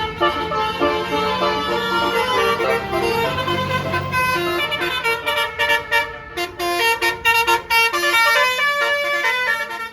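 A bus's multi-trumpet Basuri telolet horn playing a fast melody of quickly changing notes over the low rumble of the bus engine; the tune breaks off right at the end.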